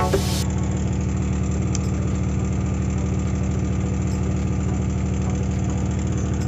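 A combustion engine idling steadily with an even low throb.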